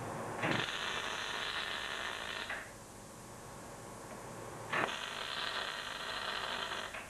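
Electric arc welding steel, plug welds laid through holes in a steel plate: two bursts of the arc of about two seconds each, each starting sharply, the first about half a second in and the second near five seconds in.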